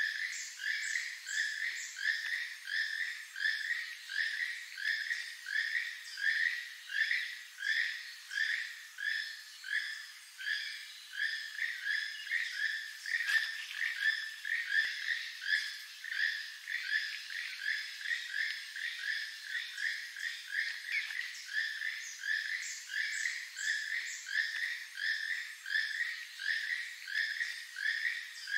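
Keel-billed toucan calling: a far-carrying, frog-like croak repeated steadily, about one and a half calls a second.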